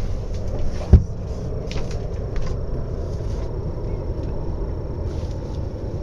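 Low, steady wind rumble on the microphone aboard a sailboat under sail, with a single sharp knock about a second in.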